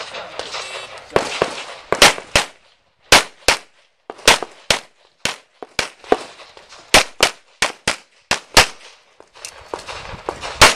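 Pistol shots during a practical shooting stage: a long string of sharp reports, mostly fired in quick pairs, with short pauses between groups as the shooter moves from target to target.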